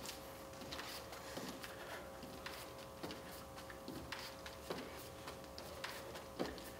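Hands lightly tapping and setting down on a hardwood floor during plank shoulder taps: faint, short taps at a steady pace, about one every two-thirds of a second, over a faint steady hum.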